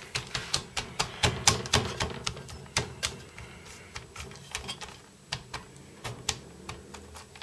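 Irregular sharp clicks and light rattling as a hand spreads damp shelled sunflower seeds across a metal baking tray, the seeds and fingers tapping the tray. The clicks come thick and fast for about three seconds, then thin out to occasional taps.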